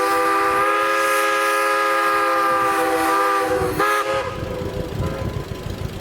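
A steam whistle blowing a long, loud chord that sags slightly in pitch as it ends, followed by one short toot.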